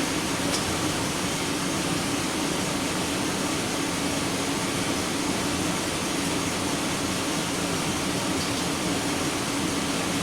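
A 2005 GMC Sierra's V8 engine running steadily. It has a misfire, later traced to one cylinder with low firing kV and a long burn time.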